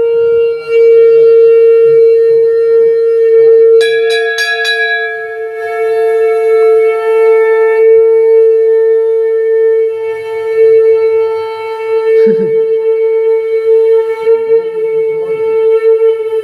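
A shankha (conch shell) blown in one long, steady, unbroken note. A few quick clicks about four seconds in, where the tone's overtones shift.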